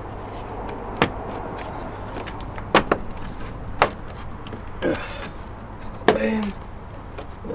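Plastic clips of a VW Golf Mk6 front grille snapping into their mounts as the grille is pushed into the bumper by hand: four sharp clicks spread over several seconds.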